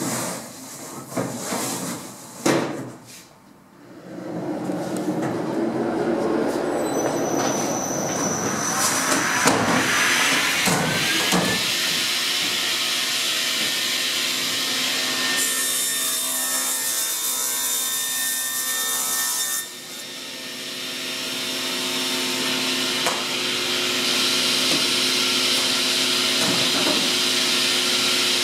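A few knocks and clatter in the first few seconds. Then an SCM sliding-table panel saw runs and its blade cuts through a wooden panel, a steady whine under a loud rushing hiss. The sound drops suddenly about twenty seconds in and builds back up over the next few seconds.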